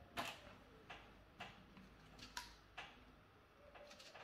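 Faint, irregular small clicks and taps, about half a dozen, from hands and pliers working a wire at the plastic terminal block of a wall switch.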